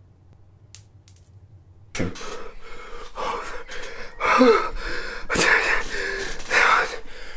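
A young man gasping and sobbing in distress: a quick run of loud, ragged breaths with short strained cries, starting about two seconds in.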